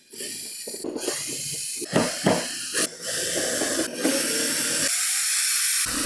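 Cordless drill-driver running in a series of short runs as it backs screws out of a vacuum cleaner's plastic housing.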